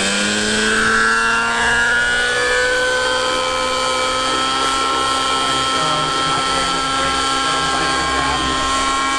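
Nitro-engined RC helicopter's engine and rotors running at flying speed as it lifts off and hovers: a loud, steady whine whose pitch finishes rising in the first moment, then holds level.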